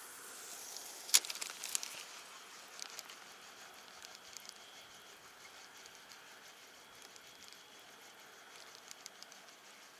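Handling of a spinning rod and reel: one sharp click about a second in and a few more clicks just after, then faint irregular ticking and rustle.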